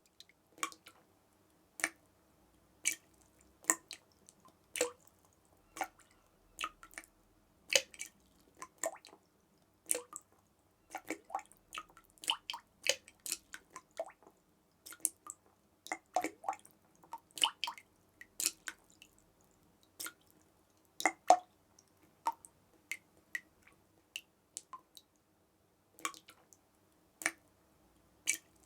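Water drops dripping in an irregular rhythm, about one to two drips a second, some louder than others.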